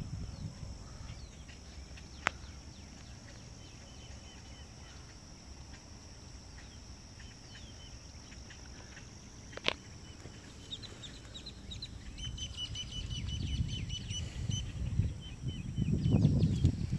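Birds chirping in quick runs of high notes through the second half, over a low wind rumble on the microphone that grows louder near the end. Two sharp clicks come about two and ten seconds in.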